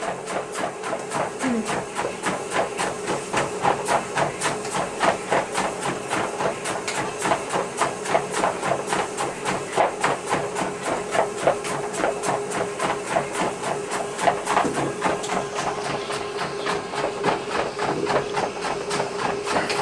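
Gordon Setter walking on a running treadmill: a quick, even run of paw footfalls on the moving belt over the steady hum of the treadmill motor.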